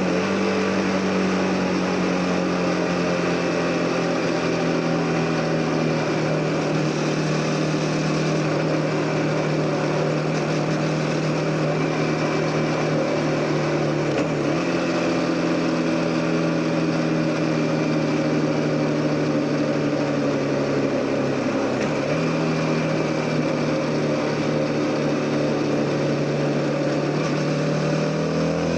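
CF Moto 250NK's single-cylinder engine running at a steady cruise, its pitch sagging slowly, dipping briefly about halfway and again about three-quarters through, then rising near the end as the throttle opens. A steady rush of wind and road noise runs under it.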